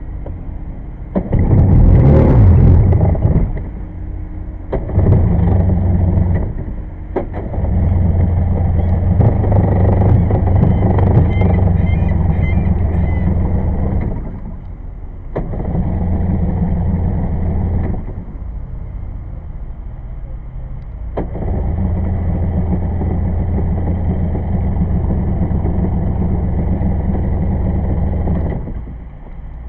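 1994 Sea-Doo personal watercraft's two-stroke engine, running on bare carburetors with no flame arrestor, revved in several surges and dropping back to a lower idle between them. It idles well on this setup but needs choke to rev up to full throttle.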